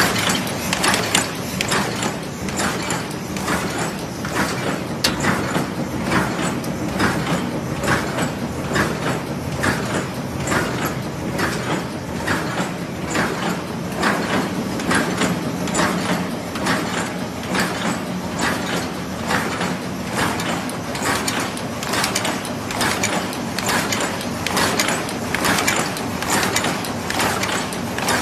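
TX-DL12 automatic paper cup making machine running in production: a steady, rhythmic mechanical clatter from its indexing turrets and forming stations, clacking several times a second.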